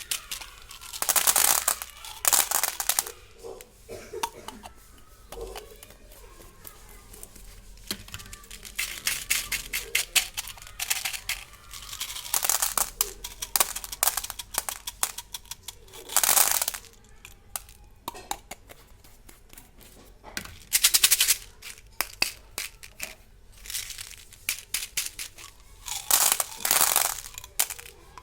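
Gems candy packets being crinkled and torn open, in irregular bursts of crackling with short pauses between.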